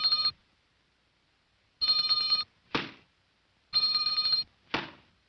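Electric telephone bell ringing in short trilling bursts about two seconds apart. Each of the two full rings is followed by a short, sharp noise.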